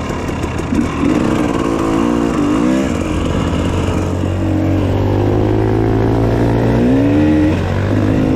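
Dirt bike engine being ridden on the trail, its pitch rising and falling repeatedly as the throttle is worked, with a longer steady pull in the middle.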